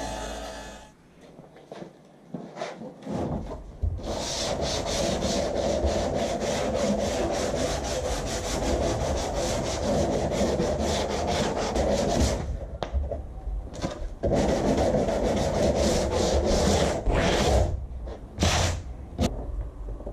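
Sandpaper rubbed by hand along the edge of a sheet of 3 mm plywood in fast back-and-forth scratching strokes, in two long runs with a short pause between and a few single strokes near the end. At the very start a circular saw finishes its cut and stops about a second in.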